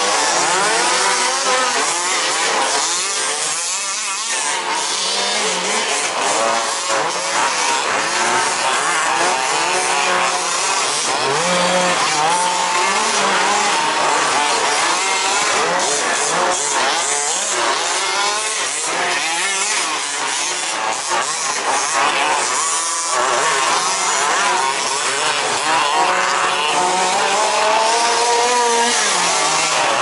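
Several 1/5-scale RC off-road cars' small two-stroke petrol engines racing around the track together. Their overlapping buzzing whines keep rising and falling as the drivers throttle up and back off.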